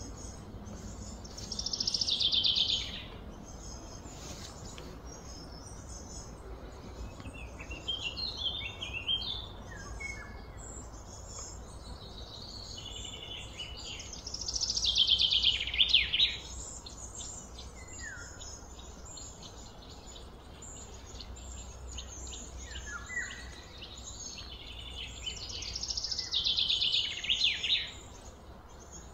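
Wild birds calling outdoors: a loud trill that falls in pitch comes three times, roughly every twelve seconds, among scattered short high chirps. A steady low rumble runs underneath.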